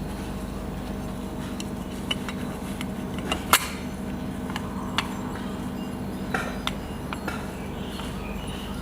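Small metal parts and tools clicking and clinking on a workbench as a heatsink is fitted back onto a circuit board, the loudest click about a third of the way in, over a steady low hum.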